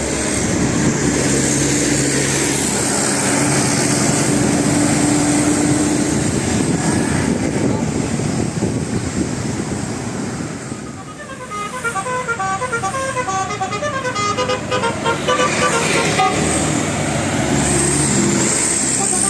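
Bus telolet horn playing a quick tune of short notes at changing pitches for about five seconds, beginning a little past the middle, over the running bus and street noise; a steady low drone from the vehicle runs through the first several seconds.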